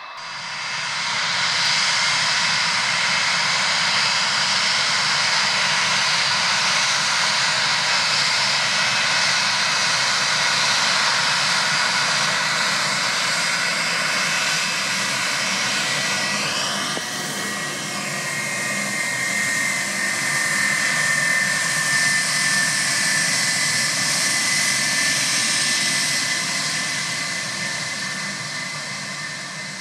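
Airbus A320 jet engines at taxi power: a steady whine over a rushing hiss. A little after halfway the whine drops in pitch as the airliner passes and turns away, and the sound fades near the end.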